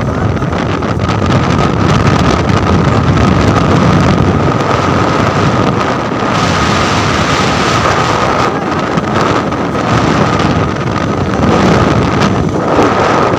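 Heavy wind buffeting the phone's microphone on a motorcycle riding at speed, with the bike's engine running underneath and a steady high-pitched tone throughout.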